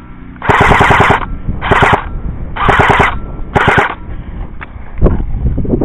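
Electric airsoft rifle (AEG) firing on full auto: four short bursts of rapid clicking shots in the first four seconds, followed by a few scattered sharp knocks near the end.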